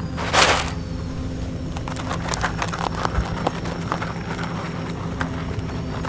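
Wild European rabbits crunching dry rabbit granola from a plastic tub: a quick, uneven run of crisp crunches and clicks. It opens with a loud burst of rustling about half a second in, and a low steady hum runs underneath.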